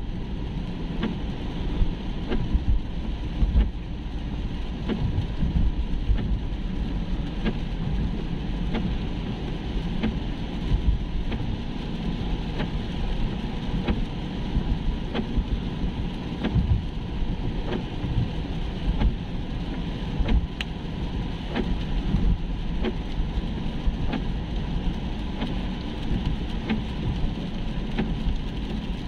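Car interior noise while driving on a wet road in rain: a steady low rumble of engine and tyres on wet pavement, with scattered light ticks of raindrops hitting the windscreen.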